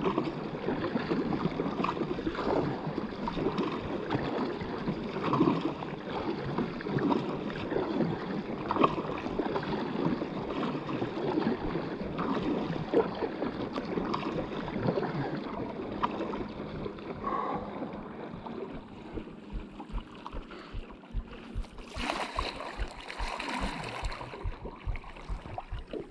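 Water splashing and lapping around a stand-up paddleboard as it is paddled, with many small splashes and knocks. Later, wind gusts buffet the microphone with low rumbles, and about 22 seconds in a louder hiss lasts a couple of seconds.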